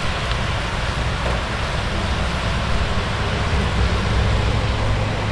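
Heavy rain pouring down in a thunderstorm downpour: a steady hiss with a low rumble beneath it.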